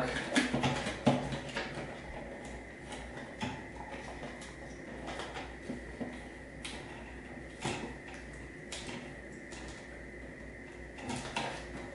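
Hands twisting a plastic twist-on wire nut onto two black wires to splice them: faint rustling of wire handling with scattered small clicks and taps, a few of them sharper.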